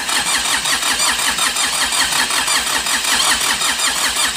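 Mitsubishi 4DR5 four-cylinder diesel engine cranked on its starter motor: the starter whines under a steady rhythm of about five compression pulses a second, and the engine does not catch. This is a hard-starting engine whose fuel filter was found dirty and never replaced.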